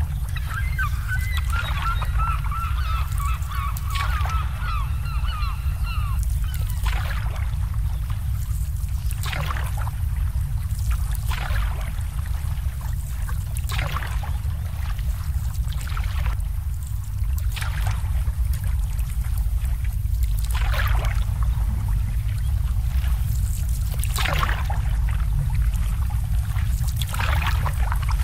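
Marina ambience: a steady low rumble throughout, with a bird calling in a quick run of short notes for the first several seconds. After that, short water splashes come every couple of seconds.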